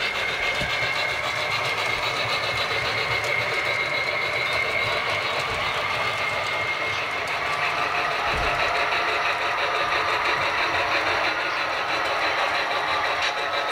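HO scale model train running on the layout's track: the small electric motor of the locomotive gives a steady high whine over the rapid, even clicking of the wheels on the rails.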